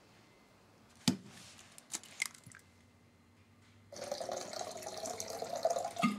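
A sharp knock about a second in and a few lighter clicks of kitchen things being handled. About four seconds in, water starts running steadily, as from a tap, and stops just before the end.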